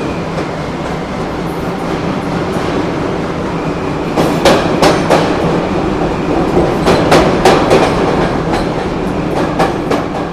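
Diesel train running, with a steady engine drone; from about four seconds in, the wheels clack in pairs over rail joints.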